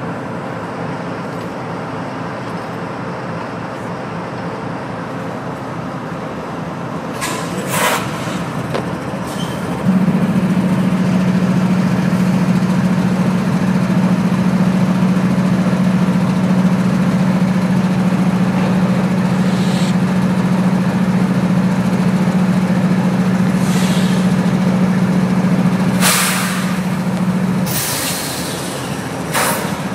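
CSX freight diesel locomotives running. About ten seconds in, a loud, steady low drone sets in and holds until a couple of seconds before the end. Short sharp hisses come a few seconds before it starts, as it stops, and again near the end.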